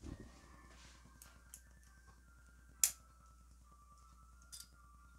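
A few small clicks from a stainless steel folding grappling hook being handled, with one sharp click about three seconds in.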